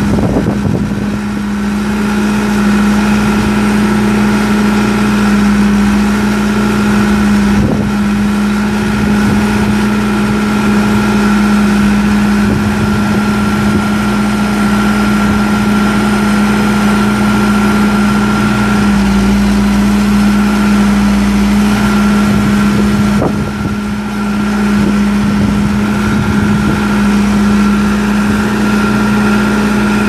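John Deere 4045 4.5-litre four-cylinder turbo diesel in a 310SG backhoe running steadily with a constant hum while the backhoe arm is worked, easing off briefly about three quarters of the way through.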